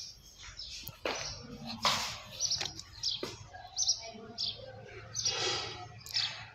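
Small birds chirping in short, high calls repeated every second or so, with a few sharp knocks, the loudest about two seconds in, and a faint low hum underneath.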